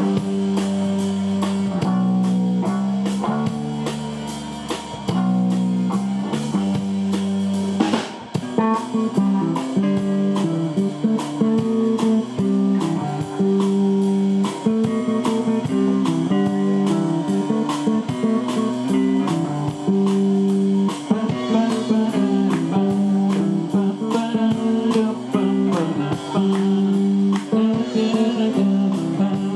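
Blues band playing an instrumental passage led by electric guitar, with bass and drums keeping a steady beat. The deepest bass notes drop out about eight seconds in.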